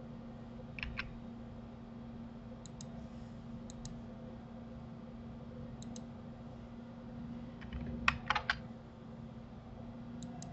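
Clicks of a computer mouse and keyboard: soft paired clicks every second or two, and a quick run of louder keystrokes about eight seconds in, over a steady low hum.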